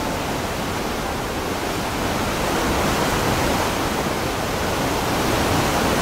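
Wide waterfall pouring over stepped rock ledges: a steady rush of falling water that grows slightly louder a couple of seconds in.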